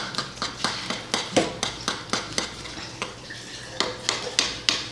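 Metal spoon stirring thick oatmeal in a metal frying pan, clinking and scraping against the pan in a quick run of strokes, about four a second.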